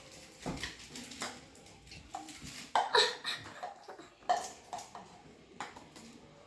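Irregular clicks and knocks of plastic Play-Doh tools clattering against a table, loudest about three seconds in.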